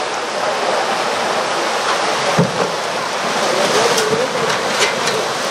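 Waves washing and breaking over a concrete ramp, a steady rushing surf, with a low thump about halfway through and a few sharp splashes near the end as a kayak hull is pushed through the shallow water.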